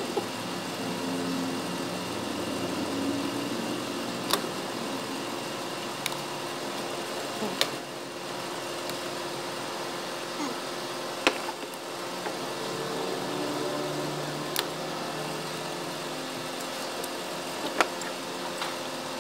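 A steady mechanical hum, with about six short sharp clicks or taps scattered through it.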